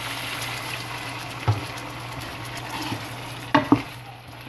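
Chicken pieces, tomatoes and spices sizzling in oil in a pot while a wooden spoon stirs them, with a few short knocks of the spoon against the pot: one about a second and a half in and two close together near the end.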